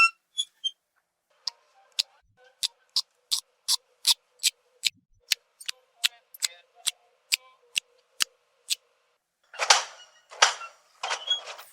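Sloth sound recording: a run of sharp clicks, about two to three a second, followed near the end by three breathy hisses.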